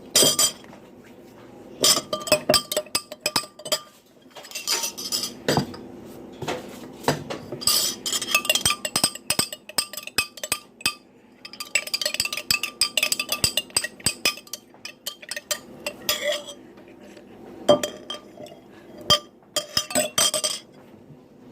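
A spoon clinking rapidly against the inside of a glass while stirring a drink, in several runs of quick taps with short pauses between them.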